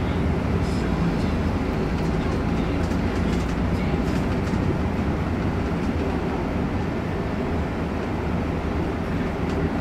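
Shuttle bus cabin noise while driving: a steady low engine drone and road rumble heard from inside the passenger cabin, with faint light rattles now and then.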